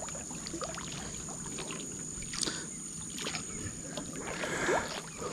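Water sloshing with light splashes and scattered small clicks, louder for a moment about four and a half seconds in, over a steady high-pitched hum.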